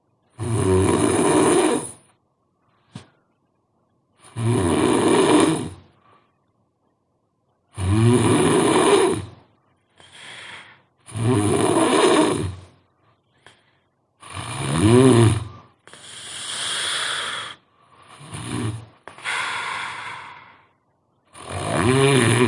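A sleeping person snoring very loudly: a rough snore on each breath, about every three to four seconds, with short silent pauses between.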